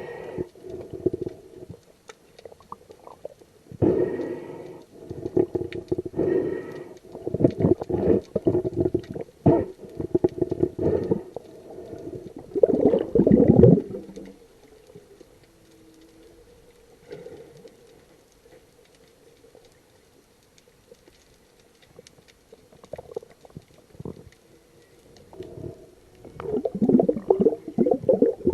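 Whale calls heard underwater: a run of low moans and grunts in clusters with a quieter stretch in between, with a short low steady tone a little after the middle.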